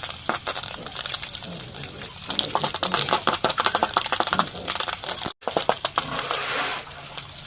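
Pigs eating at a trough: rapid, irregular chomping and clicking of feed, densest in the middle. The sound cuts out for a split second a little past halfway.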